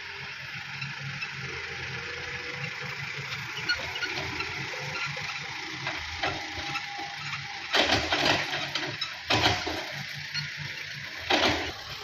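Heavy diesel engine running steadily at low speed. Three short, loud bursts of noise break in during the second half.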